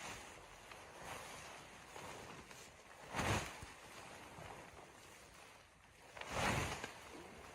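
Two loud crunches in snow about three seconds apart, with fainter rustling crunches between them.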